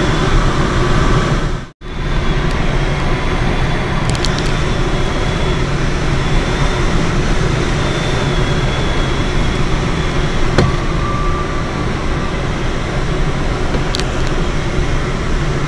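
Steady rush of air over the canopy inside the cockpit of a Schleicher K13 glider in flight. The sound drops out for a moment about two seconds in.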